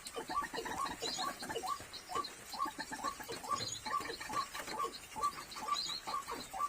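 A rapid, steady run of short chirping animal calls, several a second and overlapping, with rain falling.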